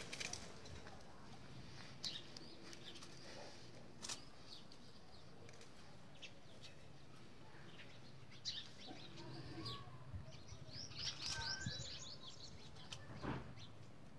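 Small birds chirping: scattered short high chirps, with a quicker run of chirps about eleven seconds in.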